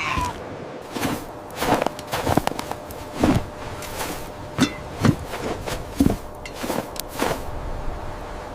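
Footsteps: a series of irregular thuds, roughly one or two a second.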